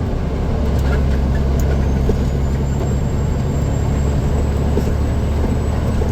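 A large vehicle engine running steadily, a low even rumble with no change in speed.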